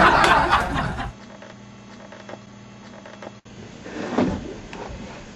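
Canned studio-audience laughter after a punchline, dying away about a second in. It gives way to quiet room tone with a low steady hum and a brief soft sound near the end.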